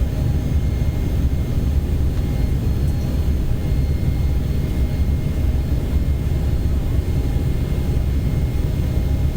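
Jet airliner running steadily after takeoff: an unchanging low drone of engines and rushing air, with a few faint steady whining tones above it.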